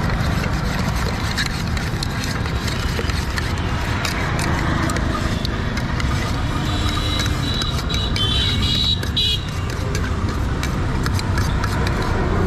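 Steady road-traffic rumble with a metal spoon clicking and scraping inside a steel tin as cut fruit is tossed. A high steady tone, such as a vehicle horn, sounds for a couple of seconds around the middle.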